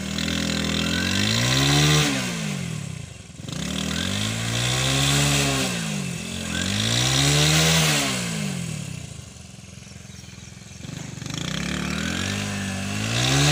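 Small motorcycle engine revved up and down about four times, each rev climbing and falling back, over another engine running at a steady pitch, likely the tractor's.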